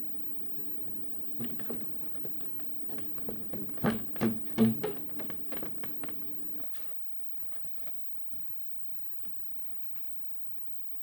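A run of light taps and knocks from stiff paper or card being handled and worked by hand, loudest about four seconds in, over a steady low hum that cuts off about two-thirds of the way through; faint ticks follow.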